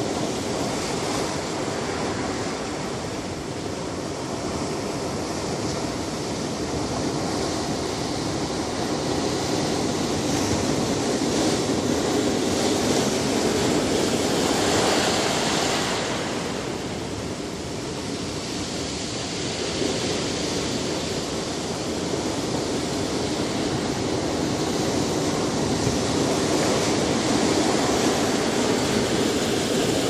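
Ocean surf: a steady rush of breaking waves that swells and ebbs, loudest around the middle and again near the end.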